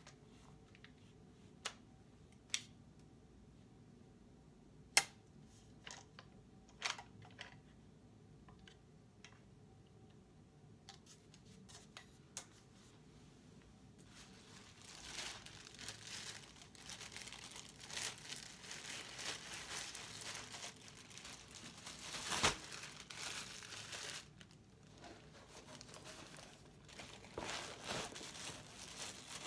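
Scattered sharp clicks and knocks as a tripod's legs and clamps are folded. About halfway in, a clear plastic bag starts crinkling steadily as the tripod is slid into it, with one louder crackle a little past two-thirds of the way.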